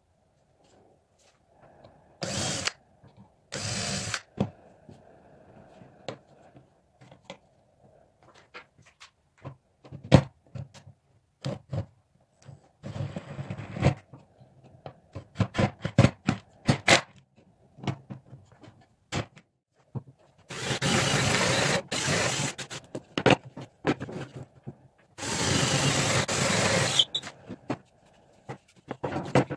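Power drill running in short bursts: two brief runs, one of about a second, then two longer runs of about two seconds each near the end, with sharp knocks and clicks of wooden parts being handled in between.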